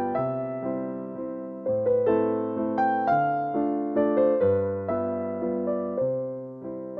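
Background piano music: single notes and chords struck and left to ring down, a new one every half second to a second.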